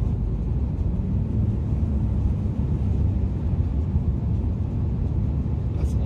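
Car interior road noise while driving: a steady low rumble of the engine and tyres on the road, heard from inside the cabin.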